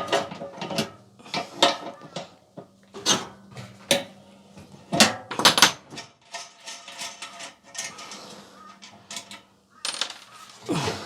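Irregular metallic clinks and knocks of a spanner or socket working loose the drum bearing nut on a clothes dryer's thin sheet-metal back panel, with short ringing after the sharper hits.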